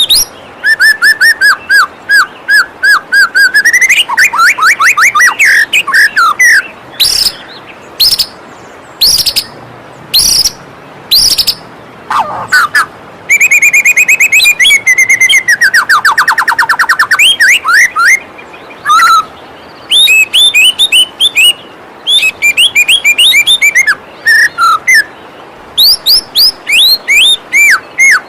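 White-rumped shama singing a loud, varied song of rapidly repeated chirps, fast trills and gliding whistles, over the faint steady rush of a waterfall.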